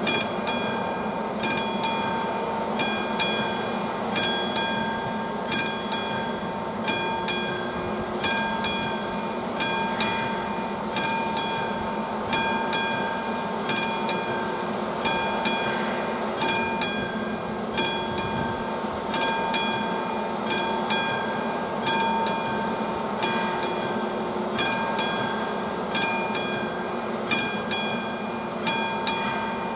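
Level-crossing warning bell, the classic bell of AŽD 71 crossing signals, striking about once a second, its metallic tone ringing on between strikes: the crossing is active with a train due.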